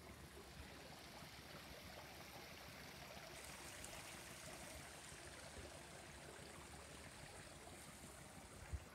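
Faint, steady trickle of running water from a backyard pool and spa, with a brief thump near the end.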